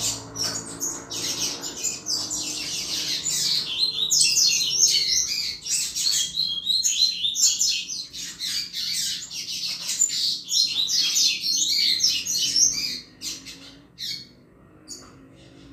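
Double-collared seedeater (coleiro) singing the 'Chuva' song type: a fast, unbroken run of high chirping notes. The run breaks off about 13 seconds in, and a few single notes follow.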